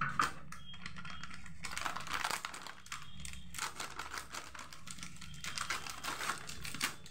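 Scissors snipping through a plastic snack packet, a run of many small clicks mixed with the packet crinkling in the hands.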